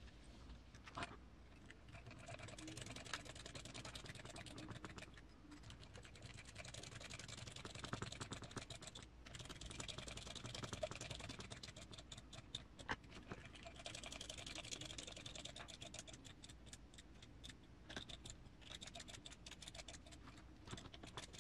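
Faint clicking and scraping of small screws being driven into an RC crawler's transmission case with a hex driver, in about four short runs, with small parts handled between them.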